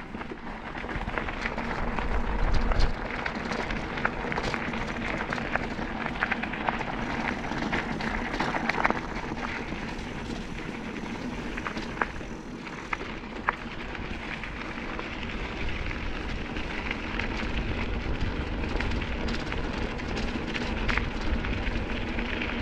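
Electric bike with wide tyres rolling over a gravel and dirt track: steady tyre crunch with many small clicks and rattles, and a low wind rumble on the microphone that swells about two seconds in.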